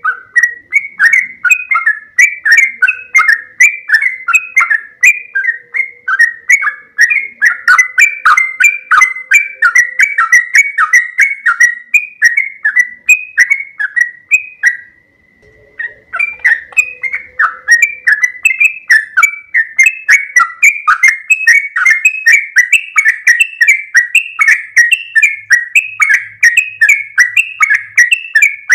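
Yellow-vented bulbul (trucukan) singing a long, fast, unbroken run of bubbling warbled notes, the 'ropel panjang' song, pausing for about a second midway before carrying on.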